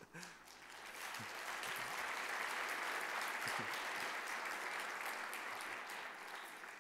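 Audience applauding. It builds up over the first second or so, holds steady, and dies away near the end.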